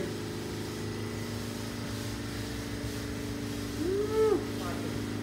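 A steady droning hum of several tones from an unseen machine. About four seconds in, a short voice-like 'hmm' rises and falls in pitch.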